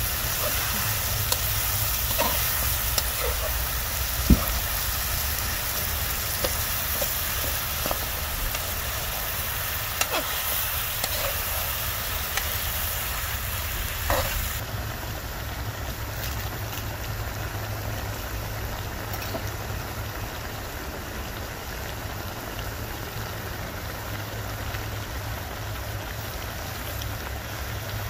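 Bear feet and vegetables sizzling in a wok, with a metal utensil stirring and clicking against the pan several times in the first half. About halfway the sound changes to a steadier sizzle with few clicks.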